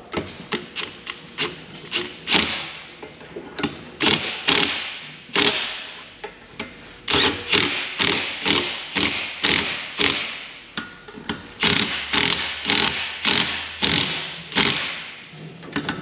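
Hand tools clicking and clanking on metal in quick repeated strikes, about two a second, with a short pause about six seconds in.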